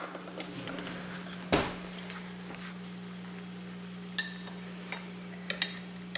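A metal utensil clinking against a glass cup while a soft, vinegar-soaked egg is fished out of it: one sharper knock about a second and a half in, then a few lighter clinks near the end, over a steady low hum.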